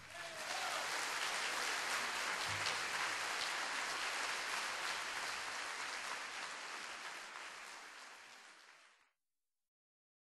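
Audience applause after the music stops, fading out over about eight seconds.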